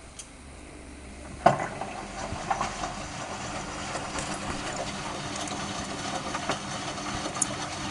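Hotpoint Aquarius washing machine speeding up on its spin. About a second and a half in there is a loud clunk, and the drum then runs louder with rattling and knocking, the sign of a broken drum spider that is more than just worn bearings.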